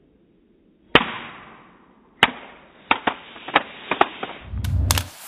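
Disposable 35mm film camera dropped from waist height and hitting the floor with a sharp clack about a second in. A second knock follows about a second later, then several lighter clicks and taps as it settles and is handled, with a muffled low rumble near the end.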